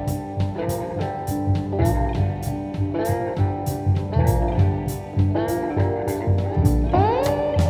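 Background music: a guitar-led, bluesy track over a steady drum beat, with one note sliding upward near the end.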